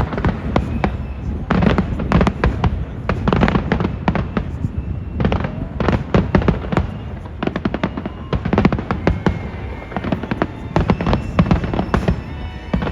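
Fireworks display going off in a rapid, continuous string of bangs and crackles, with a low rumble underneath.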